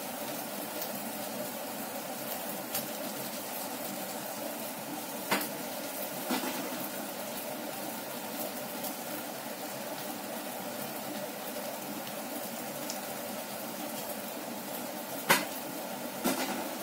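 Tomato soup boiling in a saucepan on a gas burner: a steady bubbling, with a few sharp knocks, the loudest about five seconds in and twice near the end.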